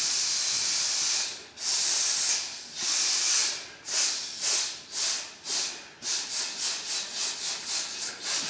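A men's chorus hissing together on the breath in a breath-support warmup: one long sustained hiss, then several shorter separate hisses, then a quick run of short staccato hisses at about three a second from about six seconds in.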